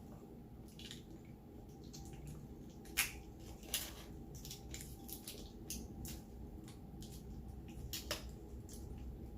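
Close-miked chewing of a fried chicken sandwich: a string of small wet mouth clicks and crunches, a few of them sharper, about three and four seconds in and again near the end.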